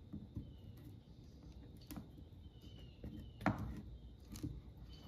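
Disassembled automotive AC compressor turned by hand, its pistons sliding back and forth in their bores: faint metallic clicks and several short high squeaks, with one sharper knock about three and a half seconds in.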